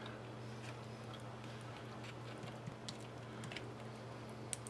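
A metal spoon spreading glazed strawberry filling in a foil pie pan: a few faint, scattered clicks and ticks over a steady low hum.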